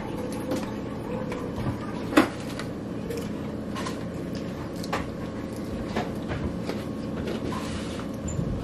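Fork clicking and scraping against a clear plastic takeout salad container as salad is tossed and picked at, with one sharp, louder clack a little over two seconds in. A steady low hum runs underneath.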